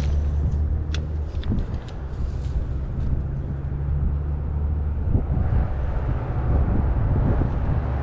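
Steady low rumble of wind buffeting the microphone, with a few light clicks about a second in.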